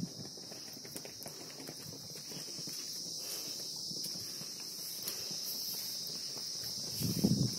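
Steady high insect drone, like cicadas or crickets, running throughout. Irregular low footsteps and scuffs on concrete get louder near the end.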